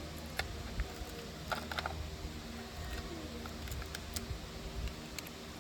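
Scattered light plastic clicks of clear polycarbonate keycaps being pressed onto a mechanical keyboard's switches, with a quick run of clicks about one and a half seconds in and another around four seconds.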